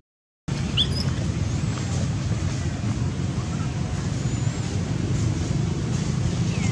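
Steady low outdoor background rumble, even in level throughout, after a brief silent gap at the start; a single short high chirp about a second in.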